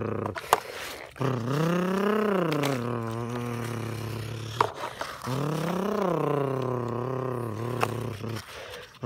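A person imitating an excavator engine with their voice: a low rumbling hum that rises and falls in pitch twice. A few sharp clicks of plastic toy parts scraping in the dirt fall between the swells.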